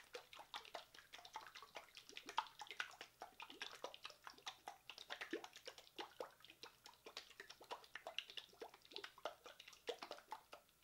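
Yogurt, oil and lemon ranch dressing sloshing inside a lidded glass jar as it is shaken vigorously, a fast, irregular run of wet splashes and light knocks that stops at the end.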